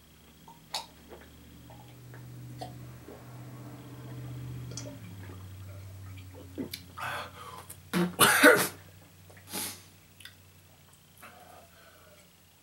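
A man gulping down apple cider vinegar, then coughing and clearing his throat in several harsh bursts, the loudest about eight seconds in, as the vinegar burns his throat.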